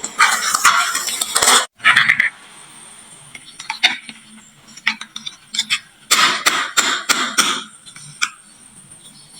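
Marbles clattering and clicking down a wooden marble run slope and into toy trucks. There are two dense bursts of rattling, one at the start and one about six seconds in, with scattered single clicks between them.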